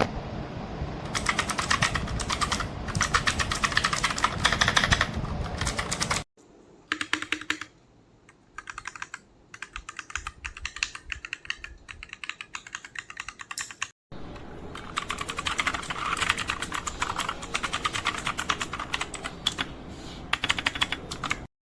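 LEAVEN H68 mechanical keyboard being typed on rapidly, a dense run of key clacks. The typing comes in three stretches joined by abrupt cuts about six and fourteen seconds in, the middle stretch quieter and without the low background hum of the others.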